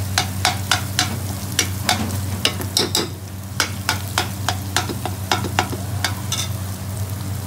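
Metal ladle scraping and knocking against the side of a metal cooking pot, about two or three strikes a second with a short pause partway through, as sliced onions, green peppers and ginger are stirred in sizzling oil. A steady low hum runs underneath.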